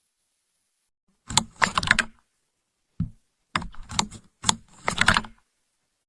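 Rapid clicking and clattering in four short bursts over about four seconds.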